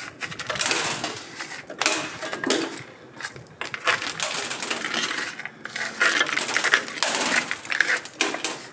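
A thin stick scraping and raking dry leaves and nest debris out of the metal channel at the base of a windscreen, with irregular scratching and many small rattling clicks.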